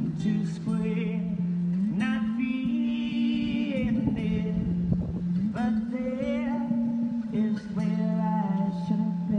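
A man singing live with an acoustic guitar. The guitar's low notes sound steadily under sung phrases that end in long held notes.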